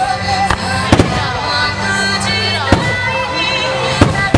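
Starmine fireworks bursting in a handful of sharp bangs, about five, spaced unevenly, over music played along with the display.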